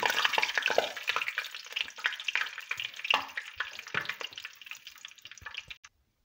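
Whole spices (bay leaves, cinnamon, black cardamom, black peppercorns and cloves) sizzling and crackling in hot oil in an aluminium pot. The sizzle fades gradually, then cuts off near the end.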